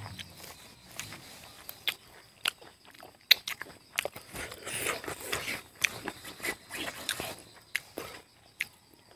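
Close-up eating sounds of a man chewing chicken with his mouth open: wet lip smacks and sharp mouth clicks throughout, with a denser stretch of chewing in the middle.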